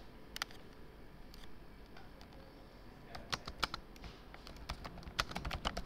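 Computer keyboard typing: a few scattered keystrokes, then a quick run of keystrokes over the last few seconds while a view name is typed in.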